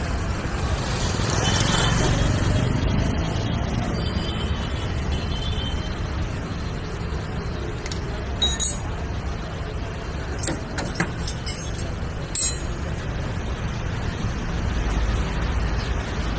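Steady low rumble of road traffic, with a few sharp metallic clinks of spanners on the shock absorber's mounting nut and bolt, about halfway through.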